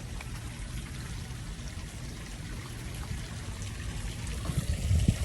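Water trickling and pouring steadily, with a few low knocks near the end.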